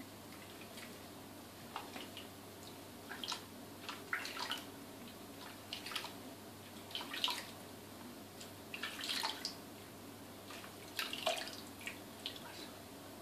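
Hands scooping and splashing soapy water in a bidet over a guinea pig being washed. Short, irregular splashes and drips come every second or so.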